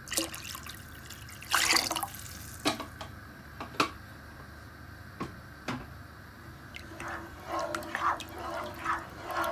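Water splashing and sloshing in a cooking pot as it is added to the soup and stirred in with a plastic ladle: a short splash about a second and a half in, a few sharp clicks, then quicker stirring sloshes from about seven seconds in.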